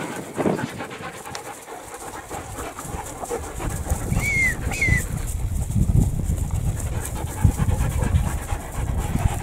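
Greyhounds playing with puppies: two short high yelps close together about four seconds in, over a low, uneven rumble of scuffling.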